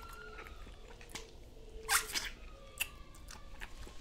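Chewing a mouthful of crispy fried chicken sandwich, with a louder, noisier mouth sound about two seconds in and a single click a little later.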